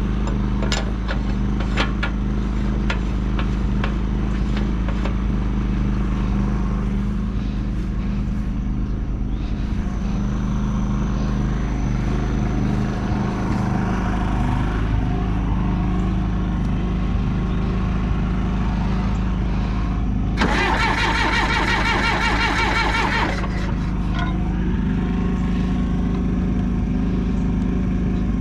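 John Deere 450C bulldozer's diesel engine running steadily, with a few sharp clicks in the first few seconds. About twenty seconds in, a loud harsh rattling burst lasts about three seconds, while the engine keeps running underneath.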